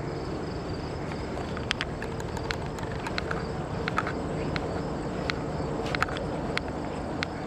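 Footsteps of a person walking across a grass lawn: a string of short, irregular soft clicks starting about a second in, over a steady outdoor background hiss.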